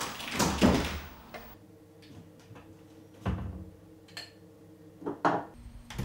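An interior door swinging shut with a loud whoosh in the first second. Then a few separate knocks and clicks of objects being handled in a kitchen, the loudest a pair near the end, over a faint steady hum.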